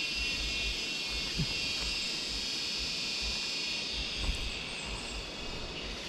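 Cicadas calling in a steady, high-pitched buzzing chorus, swelling a little midway.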